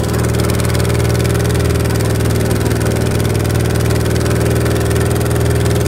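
Engine of a small outrigger boat running steadily underway, an even, unbroken drone.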